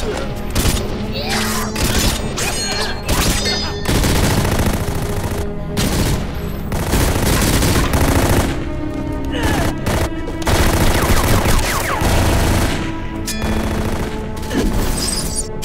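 Film battle sound effects: rapid gunfire volleys and impacts, mixed over a dramatic music score.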